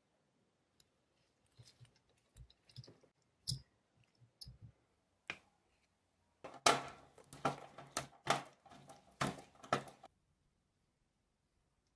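Light clicks and taps of a plastic PC fan and metal parts being handled. About six and a half seconds in comes a run of repeated scraping, grinding strokes as a screwdriver turns a screw into the sheet-metal power-supply case; it stops about ten seconds in.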